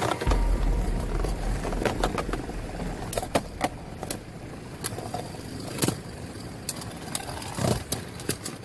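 3D-printed Beyblade spinning tops whirring, with many sharp clacks as they strike each other and the stadium.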